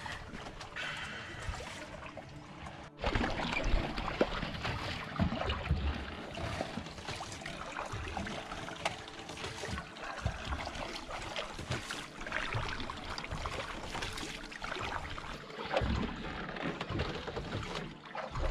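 Water splashing and lapping around a small boat moving on a lake, with scattered knocks and bumps. It is quieter for the first few seconds, then louder and busier after a sudden change about three seconds in.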